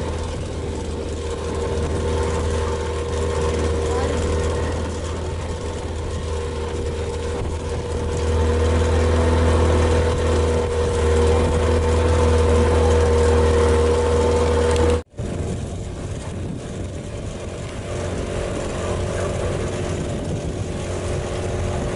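Motorboat engine running steadily, with a constant low drone and a steady hum. It breaks off abruptly for an instant about two-thirds through, then goes on a little quieter.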